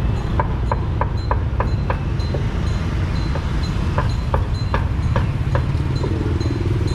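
Busy street ambience: a steady low rumble of traffic, with two runs of short, sharp clicks, about three a second, in the first two seconds and again in the middle.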